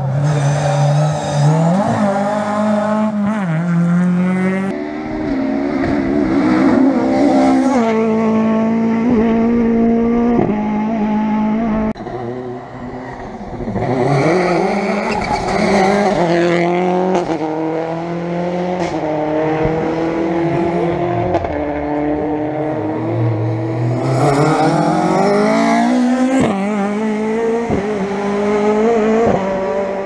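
Rally cars driven flat out on a tarmac stage: engines revving hard and climbing in stepped pitch through gear changes, with loud close pass-bys about halfway and again a few seconds before the end. One of them is a Subaru Impreza rally car.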